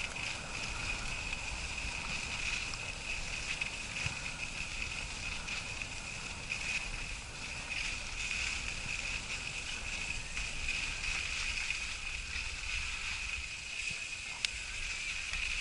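Skis sliding over snow on a steady downhill run: a continuous hiss, with wind rumbling on the camera's microphone. One sharp click near the end.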